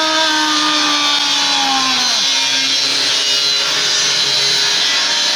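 Angle grinder cutting through sheet metal, a loud, steady hissing screech. A man's shout carries over it for the first two seconds, sliding down in pitch and breaking off.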